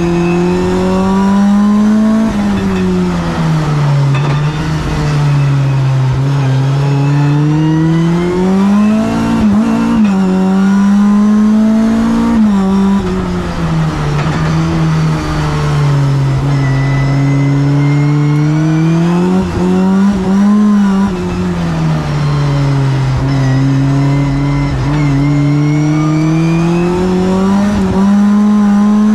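Mitjet 2L race car's two-litre engine, heard from inside the cockpit, accelerating and slowing through second and third gear. Its pitch climbs and falls several times, with short jumps at the gear changes.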